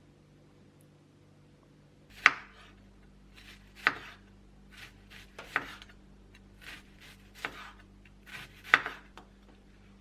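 Knife chopping on a cutting board during food prep: five sharp knocks at uneven intervals with softer handling clicks between them.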